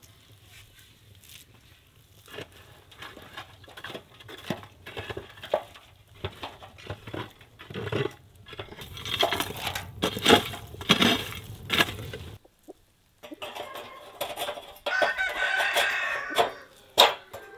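A wooden pole knocks and scrapes inside a clay tandoor oven in a series of sharp irregular hits. Chickens cluck and a rooster crows in the background, with one drawn-out call near the end.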